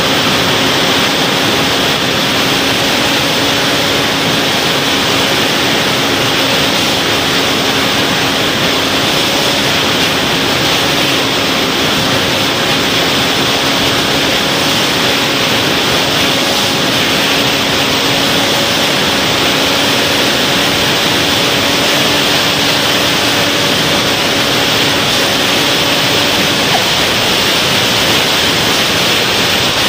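Wind rushing over the microphone of a camera mounted on a flying-wing RC plane in flight: a loud, steady hiss. Beneath it, a faint steady hum of the plane's motor and propeller cuts off about 26 seconds in, as the plane comes down low over the grass.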